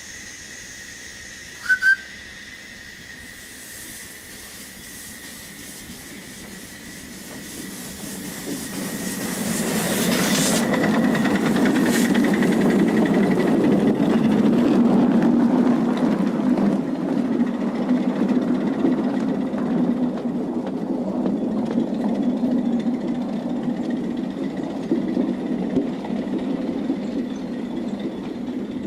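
A 7.25-inch gauge live-steam miniature locomotive: two short whistle toots about two seconds in, then the train drawing near and running on the track, growing loud from about eight seconds and staying steady.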